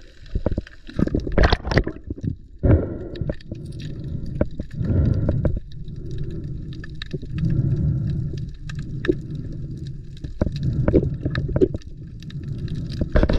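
Underwater sound heard through a submerged camera: a low, surging rush and gurgle of water with many short, sharp clicks scattered through it.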